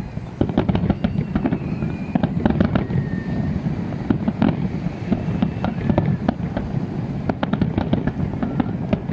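Fireworks display going off: a rapid run of bangs and crackles over a continuous low rumble, starting just after the beginning.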